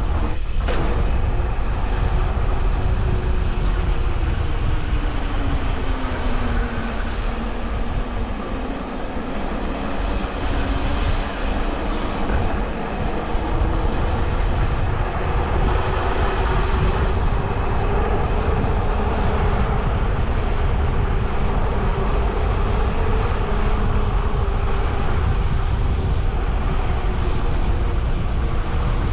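Electric mountain bike motor whining, its pitch gliding down and up with speed, over a steady low rumble of tyres on the trail.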